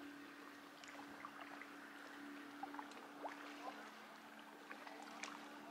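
Faint lakeshore water: small waves lapping and splashing at the edge with many light ticks, over a faint steady low hum.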